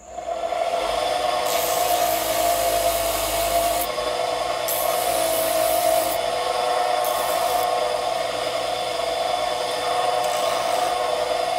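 Wood lathe starting up and running with a steady hum, its faceplate-mounted sanding disc spinning, while the end of a wooden spinning-wheel bobbin is pressed against the disc four times, each contact a hiss of wood being sanded away, the first lasting about two seconds and the others shorter.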